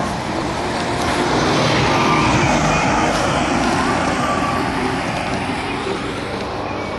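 A motor vehicle passing by on a road. Its engine and tyre noise builds to a peak about two seconds in, then slowly fades.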